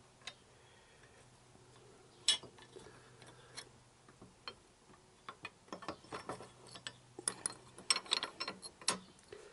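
A bolt and metal crash bar bracket handled against a motorcycle frame: scattered metallic clicks and taps, with one sharp click about two seconds in and busier clinking in the second half, over a faint low hum.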